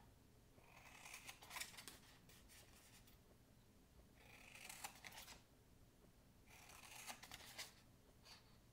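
Faint scissors snipping through cardstock: three separate cuts, a few seconds apart, each a short run of crisp snips.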